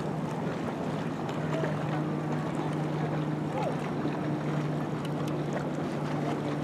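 A steady low motor hum, with wind on the microphone over it.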